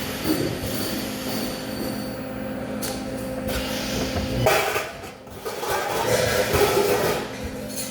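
Industrial workshop machinery running: a steady electrical hum under noisy mechanical rumbling and screeching that swells louder around the middle and again near the end.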